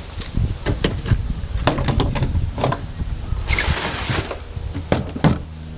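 Plastic and metal clicks and knocks from the parts of a UK Arms M24 airsoft bolt-action sniper rifle being handled, with a brief rustle about three and a half seconds in.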